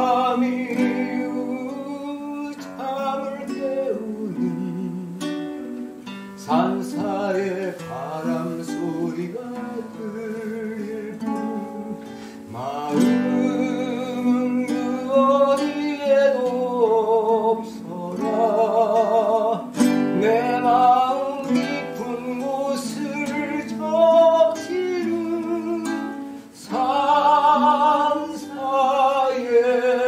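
A man singing a slow song to his own acoustic guitar, played live into a microphone.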